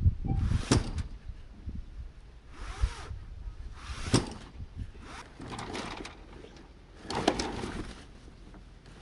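Sailcloth of a yacht's foresail rustling and flapping as the sail is lowered, with irregular clicks and knocks from the rigging. The loudest knocks come about a second in, near the middle and near the end.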